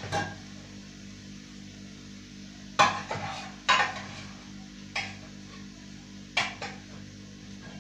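Several sharp knocks and clinks of cooking utensils against a wok-style frying pan, coming irregularly and some in quick pairs.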